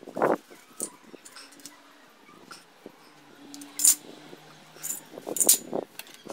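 Metal hand tools clinking against each other and the tiled floor as they are picked up and set down: a few sharp separate clinks in the second half, with a short muffled sound just after the start.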